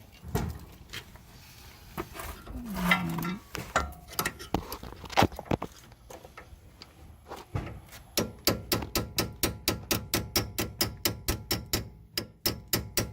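Hammer striking a steel pin punch to drive back the staked lock-washer tabs on a Honda Odyssey's inner tie rod. A few scattered taps at first, then about eight seconds in a fast, even run of ringing metal strikes, about four to five a second.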